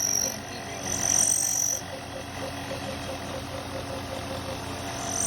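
Small desktop lathe running: a steady motor hum with a high whine that sounds briefly near the start and again about a second in, and a light ticking of about five a second through the second half.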